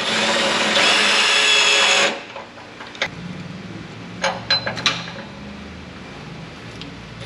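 Cordless drill running hard for about two seconds against a truck's steel frame rail with a steady whine, then stopping; a few light clicks follow near the middle over a low background hum.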